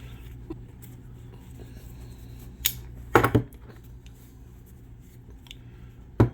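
Steel parts of a manual 4x4 locking hub clinking and knocking together as they are handled, with a few sharp metallic clacks. The loudest is a quick cluster just past halfway, with another one near the end.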